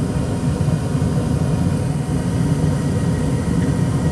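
ICP gas furnace running with its burners lit, a steady low rumble.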